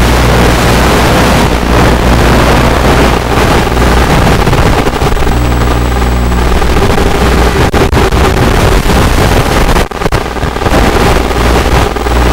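Loud, steady rush of airflow and hiss with the hum of the UMX Radian's small electric motor driving its spinning propeller in flight, as heard through the onboard FPV camera's link. A faint steady whine shows up around the middle, and the sound dips briefly a couple of times near the end.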